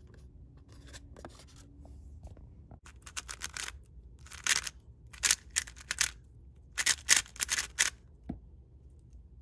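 MoYu WeiLong WR M 3x3 speed cube being turned by hand: bursts of quick, light plastic clicks as the layers are spun, starting about three seconds in and stopping a second before the end. The cube is a dry-lubed one that sounds very quiet.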